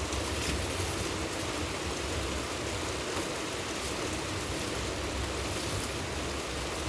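Steady rainfall: a continuous even hiss with faint scattered drop taps and a low rumble underneath.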